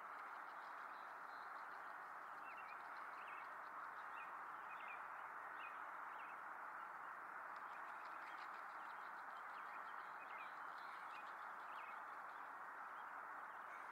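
Small birds chirping faintly in short, repeated calls over a steady, even hiss.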